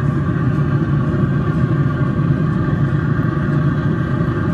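Steady low motor hum and rumble with a few constant higher tones, from the Pit Boss 700FB pellet grill's fan running while the grill cooks.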